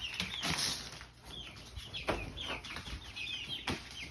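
Young chickens peeping, with many short, high calls repeating several times a second. A brief rustle of wings comes about half a second in, and there are two sharp knocks.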